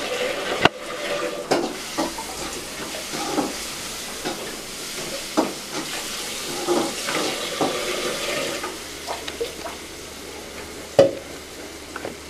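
Kitchen tap running into a steel bowl, filling it with water to thaw frozen chicken, with a few sharp knocks and clinks of the bowl and dishes.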